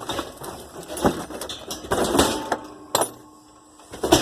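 A few scattered knocks and clatters of objects being handled, with a sharp knock about three seconds in and the loudest knock at the very end.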